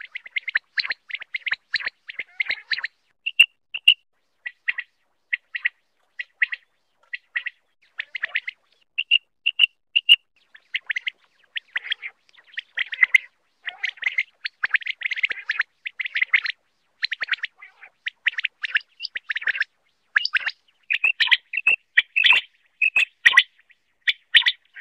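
Common quail calling: runs of short, sharp chirping notes in quick clusters, with brief gaps between the runs.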